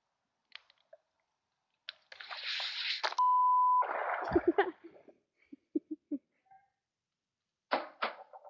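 A rush of spraying, splashing noise for about a second, cut off by a loud censor bleep, a steady beep held for about half a second, then more splashing noise and a few short knocks; a new burst of clicks and rustling comes near the end.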